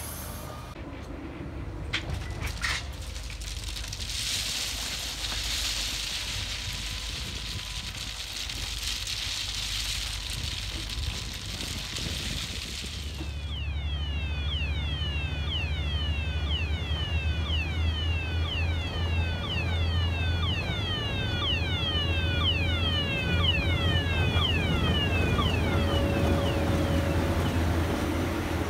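Heavy track-works machinery. First a diesel machine runs with a hiss and a couple of knocks. About halfway in, a diesel engine drones low while an electronic warning sounder repeats a falling whistle about twice a second.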